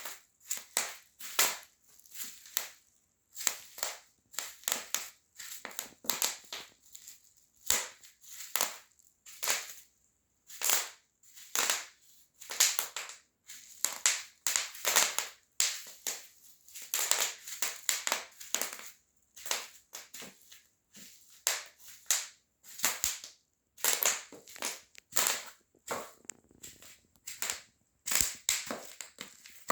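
Bubble wrap popping under high heels: sharp snaps in an irregular series, a few a second, sometimes several close together in a quick crackling run, with short pauses between steps.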